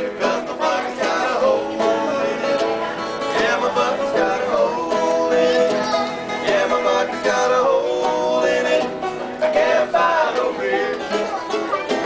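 Live acoustic band playing a folk tune on banjo and guitar, with plucked notes running continuously and no words.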